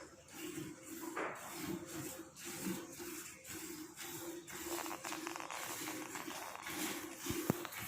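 A buffalo being milked by hand: jets of milk squirting into a bucket in a steady rhythm, about two squirts a second, each a short hissing splash. A single low knock near the end.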